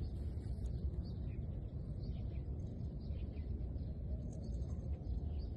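Outdoor background noise: a steady low rumble, with a few faint, short, high chirps about four to five seconds in.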